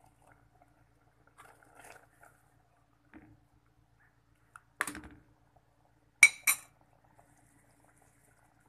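Metal spoon clinking against a cooking pot of noodles in water: faint scraping early on, then one sharp clink about five seconds in and two more in quick succession a second and a half later.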